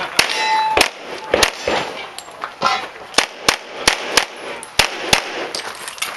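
A string of handgun shots fired during a USPSA course of fire, about a dozen sharp reports at uneven spacing, some in quick pairs.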